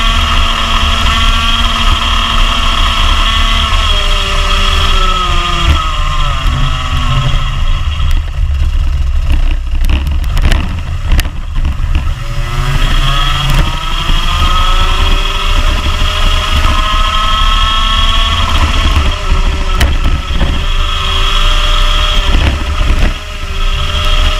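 Rotax Max Junior 125cc two-stroke kart engine heard from onboard. It revs high along the straights, falls away as the kart slows for corners, then winds back up. About eight seconds in, with the revs low, there is a run of sharp thumps and rattles lasting several seconds.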